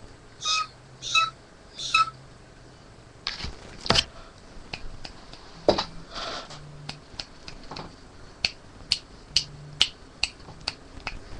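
A person making sounds to get a cat's attention: three short, pitched clicking mouth sounds, a knock about four seconds in, then a long run of sharp, separate finger snaps, one or two a second.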